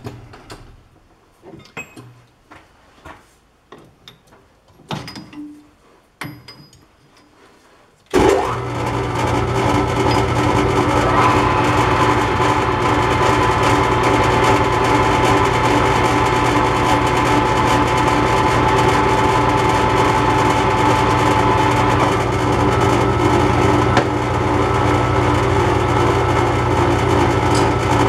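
Scattered clicks and knocks of metal parts and tools being handled for the first several seconds. Then, about eight seconds in, a metal lathe's motor and gear train start abruptly and run steadily with a low hum and a whine.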